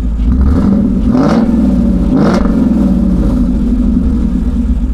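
Ford Mustang GT's V8 engine running, its exhaust note rising and falling twice in quick revs about a second in and again about two seconds in.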